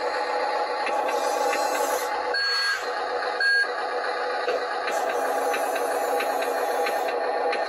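Electric gear motors of an RC wheel loader whining steadily as it raises and tips its bucket. There are two short high beeps a second apart. Light clicking comes from white pellets spilling into the dump truck's bed.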